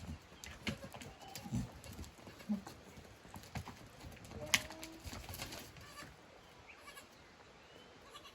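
Goats: a few short, faint bleats among scattered knocks and clatter, with one sharp knock about halfway through.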